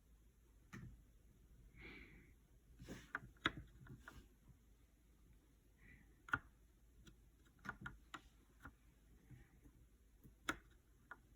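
Faint, scattered keystrokes at irregular intervals on a GK61 mechanical keyboard with Gateron optical brown switches, each press a short click.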